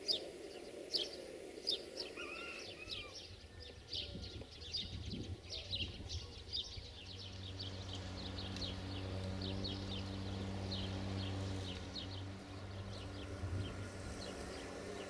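Small birds chirping over and over, joined about seven seconds in by a diesel locomotive engine humming low and steadily, which fades a little near the end.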